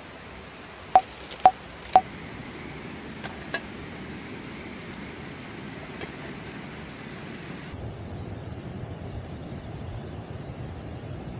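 Aluminium camp cookware clinking: three sharp metallic clinks about half a second apart, then two lighter taps, as a kettle pours water into a mess tin with a steamer rack and the lid goes on. A steady hiss runs underneath, with faint high chirping near the end.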